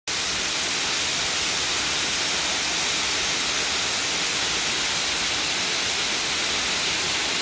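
Waterfall close by: steady rushing water, a loud even hiss.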